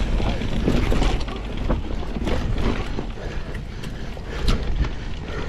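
Mountain bike rolling down a dirt forest trail: tyres running over the soil and the bike's chain and parts rattling over bumps, giving a steady rumble scattered with many small clicks and knocks.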